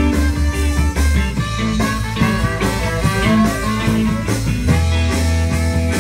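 Rock band playing an upbeat dance song: drums keep a steady beat under bass and electric guitar.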